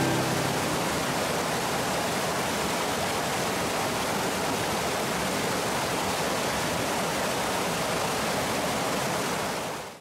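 Small waterfall cascading over rock ledges, a steady rush of falling water that fades out right at the end.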